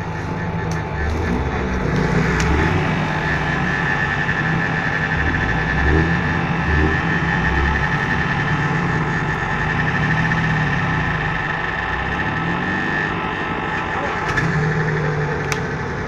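Lada Niva's four-cylinder engine running under load as the car works to climb out of a ditch, its pitch shifting up and down. A steady high whine runs through the middle of the stretch.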